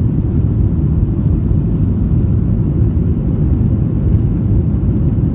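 Steady low rumble of a Boeing 737-800 cabin during the climb after take-off: the CFM56-7B engines at climb power and the airflow over the fuselage, heard from a window seat.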